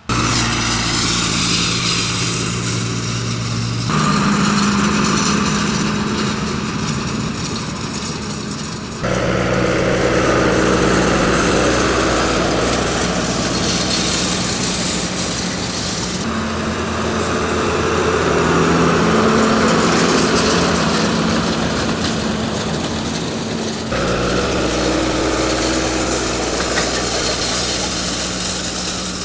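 Farm tractor engine running steadily under field work. The pitch and level jump abruptly about four times, as from cuts between shots.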